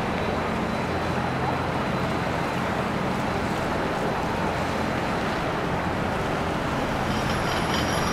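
Boat engines running steadily: a low engine hum under an even wash of noise.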